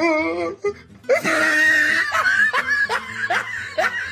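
A child screams for about a second, then lets out a run of short, rising laughs, two or three a second, over background music: a reaction to the burn of extra-spicy fire noodles.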